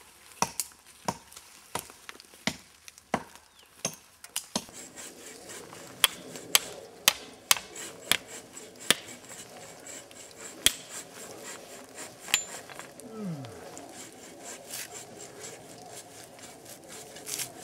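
Repeated sharp wooden strikes of a tool cutting into the bark of a stringybark tree, about two a second, pausing briefly and then thinning out near the end.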